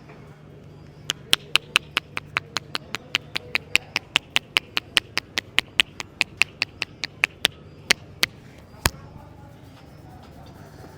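Hands striking in percussive head-massage tapping: a fast, even run of sharp slaps, about five a second, lasting some six seconds, followed by three more spaced slaps. A steady low hum runs underneath.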